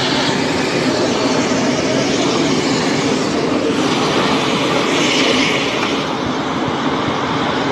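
Gasoline jetting under high pressure from an illegally tapped fuel pipeline: a loud, steady rushing spray.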